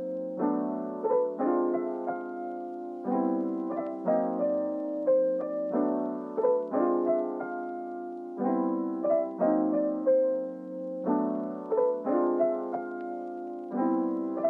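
Background music: a gentle lo-fi piano tune with soft chords changing every second or so.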